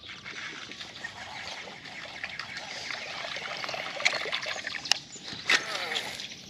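Water trickling and splashing close by, with three sharp knocks about four, five and five and a half seconds in.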